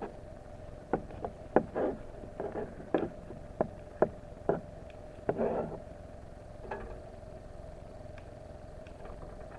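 Knife slicing an onion on a cutting board: about a dozen sharp, irregular chops in the first five or six seconds, then the cutting stops.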